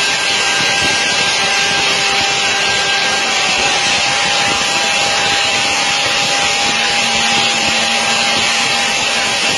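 Steady loud machinery whine and hiss from a large transport aircraft's running systems during a main landing-gear retraction, with a constant mid-pitched tone through it and a fainter low hum joining for the last few seconds.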